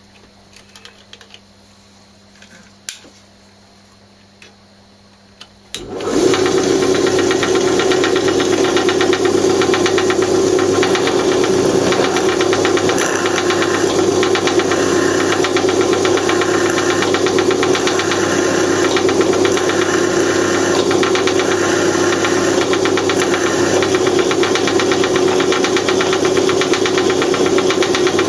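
A few faint taps, then about six seconds in a bench-mounted electric drill starts and runs steadily at high speed, driving a small twist drill into a metal air-gun cylinder to make a breath hole.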